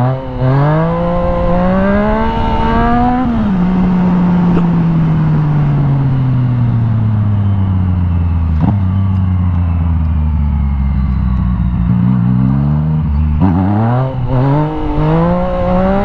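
Yamaha FZ-09's 847 cc inline-three engine under a rider's throttle: revs climb for about three seconds, then fall slowly in pitch for a long stretch as the bike slows off the throttle, and climb steeply again from about thirteen seconds in. Wind rush on the microphone runs underneath.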